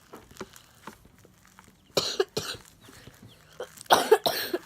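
A sick girl coughing: a short bout of harsh coughs about two seconds in, then a louder bout near the end.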